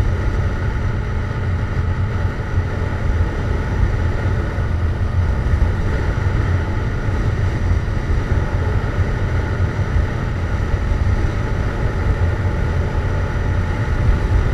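Yamaha MT-07 parallel-twin with a Jeskap GP aftermarket exhaust running at a steady cruising speed, its low engine note holding level under a steady rush of riding noise.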